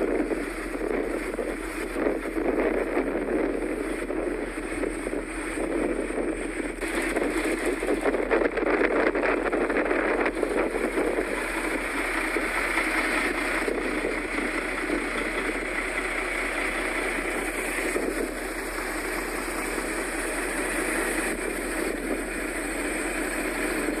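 Blizzard wind blowing steadily across the microphone, a continuous rushing noise with no break.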